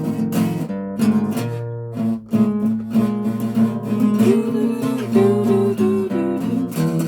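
Acoustic guitar strummed, chord after chord at an uneven pace.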